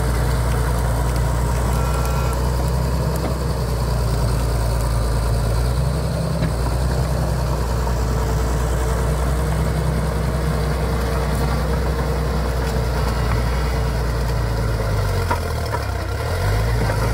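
Crawler bulldozer's diesel engine running steadily as the machine pushes over brush and small trees while clearing land.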